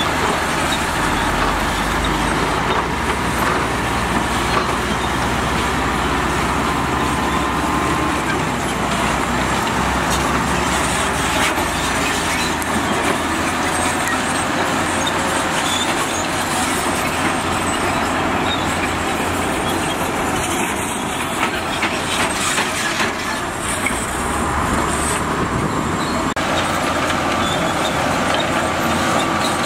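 Heavy diesel construction machinery running steadily under load, a continuous engine rumble and mechanical noise.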